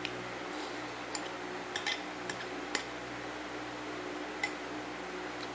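A spoon clicking lightly against a plate and bowl while eating, a handful of short sharp clicks with several bunched together about two seconds in, over a steady low hum.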